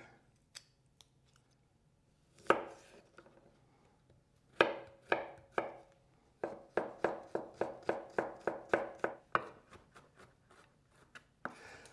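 Chef's knife chopping garlic cloves on a wooden cutting board. A single knock comes first, then a few strokes, then a quick steady run of about four chops a second, trailing off into lighter taps near the end.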